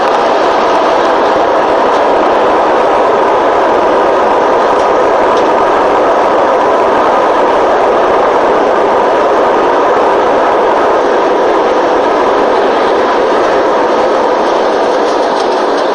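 Passenger jet airliner noise: a loud, steady roar with no breaks or changes.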